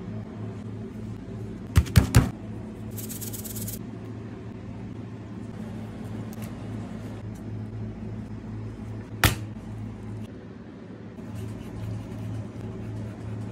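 Sharp knocks of a knife and kitchen tools on a wooden cutting board: a quick cluster of several knocks about two seconds in and a single knock about nine seconds in. Under them a steady low mechanical hum.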